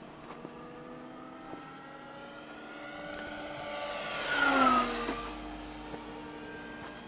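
Radio-controlled Corsair warbird's brushless electric motor and propeller whining as it makes a low, fast fly-by. The whine swells and rises in pitch on the approach, peaks with a rush of propeller noise about four and a half seconds in, drops sharply in pitch as the plane passes, then fades.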